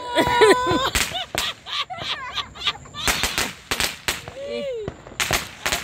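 Fireworks going off in a string of sharp, irregular cracks and pops, with excited voices between them.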